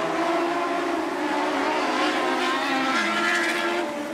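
Lightning Sprint race cars racing on a dirt oval, several engines heard at once, their notes rising and falling as they lap. The pitch dips about three seconds in.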